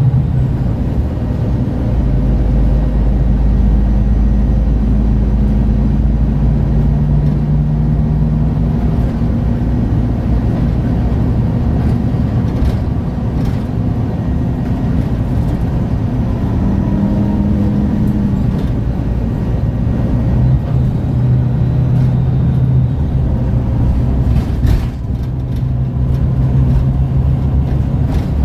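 MAN Lion's City G articulated bus with its six-cylinder diesel engine running steadily at a standstill, with a few brief shifts in the engine's tone.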